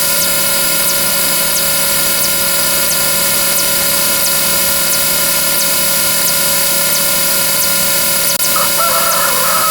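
A steady, dense wall of overlapping sound effects, with faint regular clicks running through it. A new held tone joins about a second before the end.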